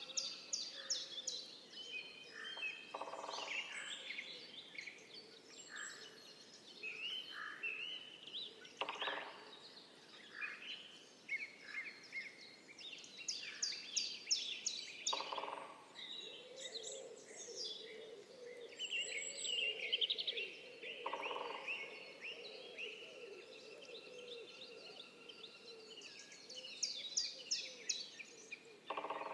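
Several woodland birds singing and chirping, with quick trills and high note series throughout. A lower, harsher bird call repeats about every six seconds.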